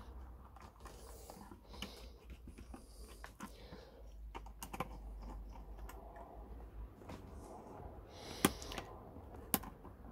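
Small clicks and taps of a screwdriver working the screw terminals of a solar charge controller, with light handling of the wires and plastic case; a few sharper clicks stand out, the loudest near the end.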